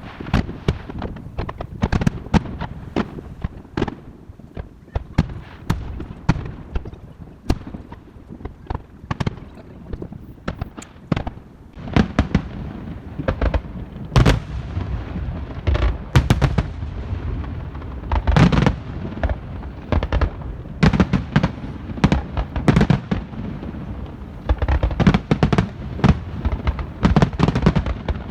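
Fireworks going off one after another: many sharp bangs and crackles in quick, irregular succession, some overlapping, with the loudest bangs in the second half.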